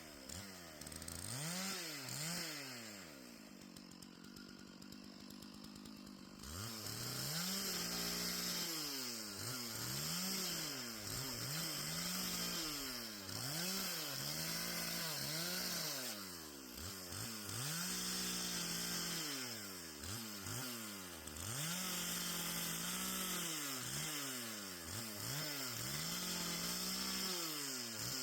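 Chainsaw bucking a fallen tree, its engine revving up and falling back again and again, about once a second. About three seconds in it drops to a steady idle for a few seconds, then the revving resumes.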